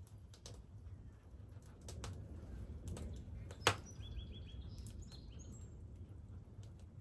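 Low rolling thunder rumbling under scattered light crackles, with a single sharp crack a little past halfway. Just after it, a small bird chirps a quick run of short high notes, stepping higher at the end.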